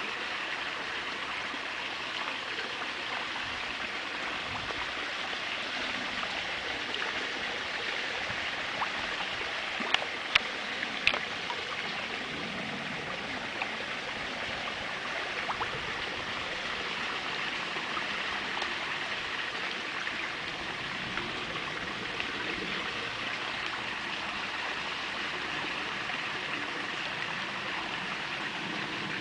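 Steady running water in a koi pond, with a few sharp clicks at the surface about ten to eleven seconds in.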